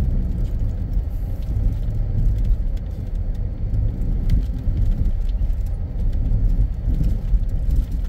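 Jeep driving slowly over a muddy dirt track, heard from inside the cabin: a steady low rumble of engine and tyres with a few faint knocks.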